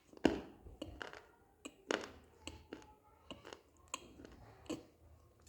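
Dry multani mitti (fuller's earth clay) being bitten and crunched: about ten sharp, irregular crunches, the loudest near the start and about two seconds in.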